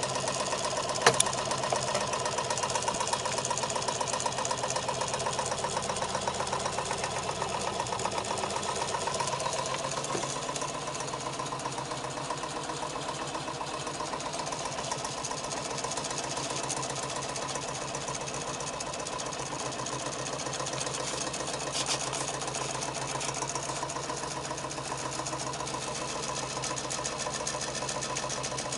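32 cc alpha-type Stirling engine running steadily and driving a small generator, with a fast, even mechanical clatter that gets a little quieter about ten seconds in.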